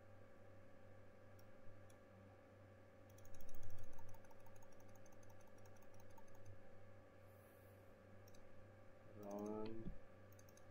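Computer mouse and keyboard clicks over a steady electrical hum, with a rapid run of clicks about three seconds in. Near the end a short squeak rises in pitch.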